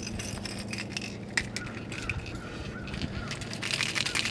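Clicking and rattling from a small hooked hybrid bass thrashing while being unhooked, the lure's metal hooks jangling, with a dense run of fast clicks near the end over a low steady hum.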